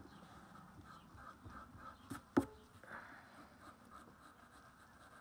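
Graphite pencil scratching faintly on paper as it shades and sketches. Two sharp knocks come about two seconds in, the second louder.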